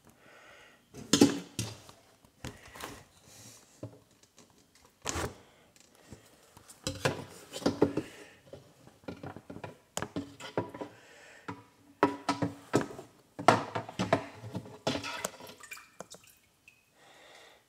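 Irregular knocks, taps and rustling from handling close to the microphone.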